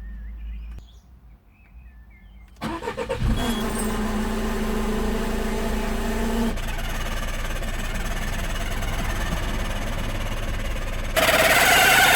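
Peugeot 307 SW engine cranked and started about two and a half seconds in, then running steadily with a held tone for a few seconds. Near the end the engine-bay noise becomes much louder and brighter. The owner suspects the strange engine-bay sound comes from a broken tensioner pulley or the alternator.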